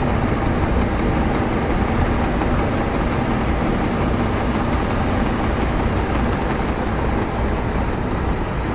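D80 combine harvester running steadily while harvesting soybeans: a continuous mechanical din with a low engine rumble under a high hiss, unchanging throughout.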